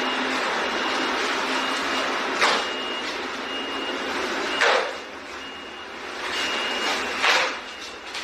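A high electronic beep repeating at an even pace over a steady background noise, with three sudden thuds about two seconds apart.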